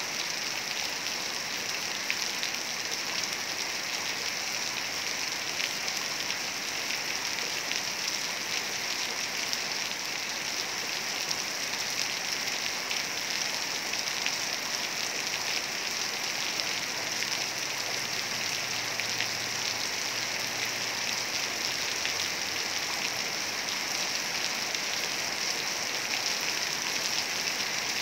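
Heavy rain pouring down in a steady, unbroken hiss of drops.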